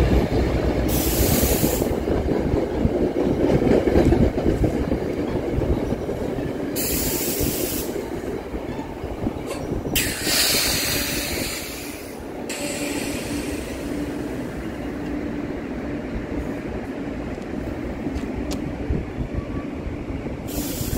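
Commuter train coaches rolling past at speed: a steady rumble of wheels clattering over the rails, with several brief surges of high hissing from the wheels.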